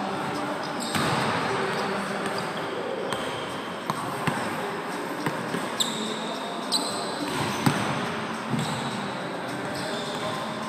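Basketball bouncing on a hardwood gym floor: several sharp, irregularly spaced bounces, mostly in the second half, ringing in a large gym hall.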